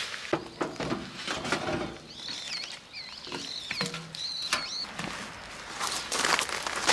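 Plastic-gloved hands handling a metal kerosene can and its anti-spill cap: scattered clicks and rustles, with a string of short high squeaky chirps in the middle. Footsteps crunch on gravel near the end.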